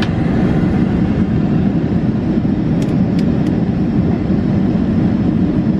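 Steady low rumble of a Boeing 747 airliner in flight, engine and airflow noise heard inside the cabin at a window seat, as the aircraft begins its descent. A few faint ticks come about three seconds in.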